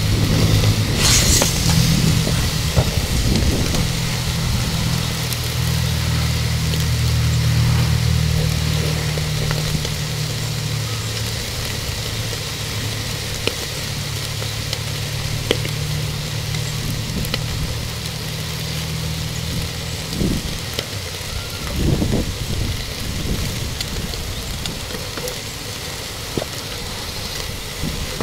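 Wind buffeting the microphone in a heavy low rumble that dies away about two-thirds of the way through, over a steady sizzle of food on a barbecue grill. A few dull knocks follow once the wind drops.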